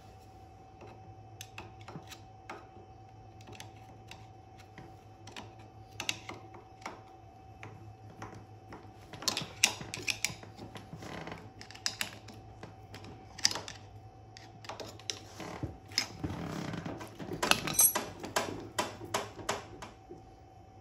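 Small metal parts of a go-kart front hub clicking and clinking as the hub is taken apart by hand, in irregular taps that are sparse at first and come thick and fast from about nine seconds in and again near the end, over a faint steady hum.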